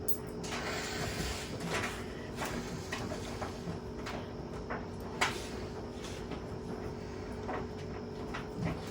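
JLA washing machine running with a steady motor hum, with irregular knocks and rattles from the drum and cabinet. There is one sharper bang about five seconds in.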